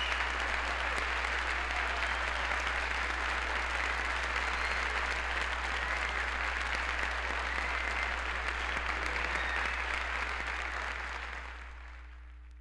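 Audience applauding steadily over a constant low hum, then fading out near the end.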